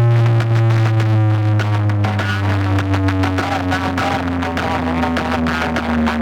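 Loud distorted electronic music played through a DJ sound-box system for a sound check: a heavy, steady bass note under a long, slowly falling tone.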